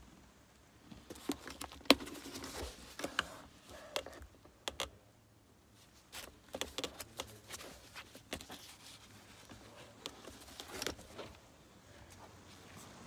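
Handling sounds: scattered clicks, taps and rustling as a leather document wallet holding the vehicle's manuals and service book is taken from a car's centre console cubby and leafed through, with a sharp click about two seconds in.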